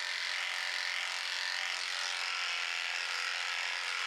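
Electric horse clippers running with a steady buzz while clipping the coat on a horse's foreleg.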